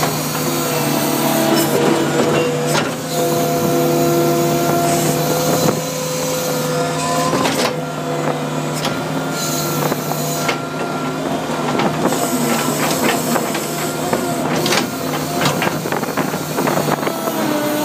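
Skid steer loader running steadily, a low engine drone with higher whining tones that shift in pitch now and then. Scattered sharp knocks and cracks come thicker toward the end.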